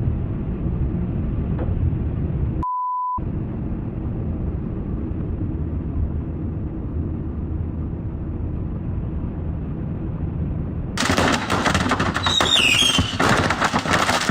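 Strong gusting wind buffeting the microphone: a loud, steady, low rumbling. About three seconds in it drops out for half a second under a short beep tone, and about eleven seconds in it gives way to louder, hissier wind noise.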